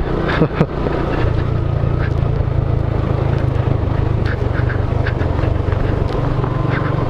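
Motorcycle engine running steadily while riding, with a few knocks and rattles near the start.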